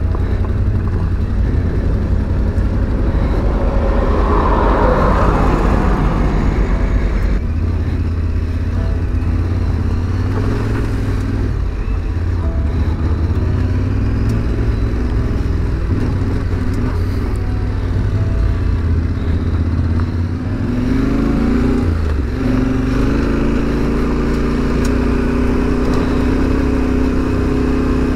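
Yamaha Ténéré 700's parallel-twin engine running as the motorcycle rides a loose gravel road, with the revs climbing a little past two-thirds of the way through.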